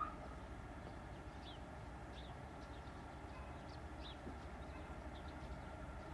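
Distant TEP70 diesel locomotive working under power as it approaches, a faint steady low drone from its engine. Several short high chirps of small birds sound over it.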